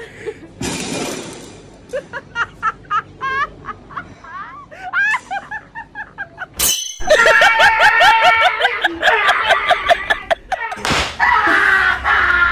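A short crash near the start, followed by a run of short squeaky chirps, then lively comedic music with a busy, bouncy melody from about seven seconds in.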